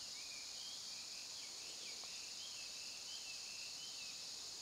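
A steady, high-pitched chorus of insects, with a faint call wavering up and down in pitch running through it.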